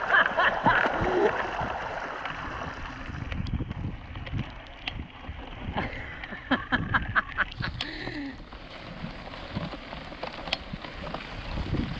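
Mountain bike's front wheel splashing through shallow water for the first second or so, then rolling over rough grass with a run of rattling clicks and knocks from the bike.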